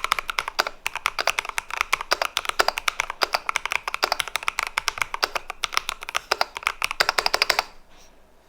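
Keychron V2 65% mechanical keyboard being typed on quickly, a dense run of key clicks that stops abruptly near the end.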